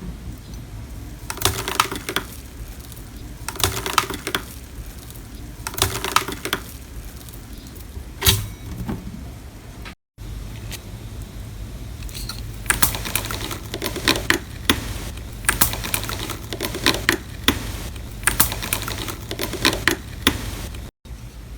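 Slime being pressed and squeezed by hand, giving crisp clicking and popping: a burst about every two seconds at first, then, after a short break, denser and more continuous clicking. A steady low hum runs underneath.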